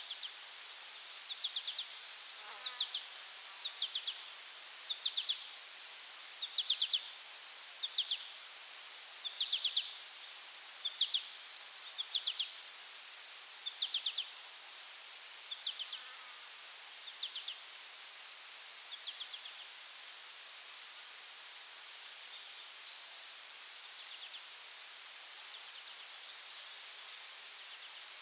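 Forest ambience of insects: a steady high-pitched insect drone, with a short pulsed chirp repeating about once every second and a quarter that fades out about two-thirds of the way through.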